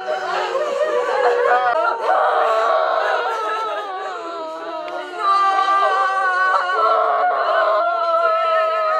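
Several mourners, mostly women, wailing and sobbing together in grief, their voices overlapping and breaking. About halfway through the cries turn into long, held wails at several pitches at once.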